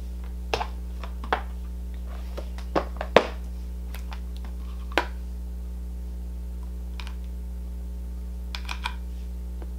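Scattered sharp clicks and taps of makeup tools being handled on a tabletop: brushes and eyeshadow pans picked up and set down. The loudest click comes about three seconds in and a quick cluster near the end, over a steady low hum.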